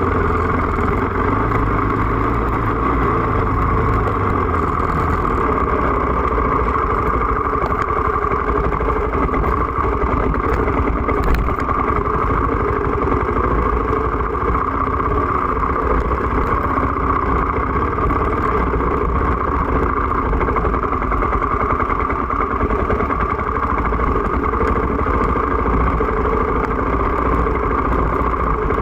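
KTM off-road motorcycle engine running steadily while the bike rides along a dirt trail.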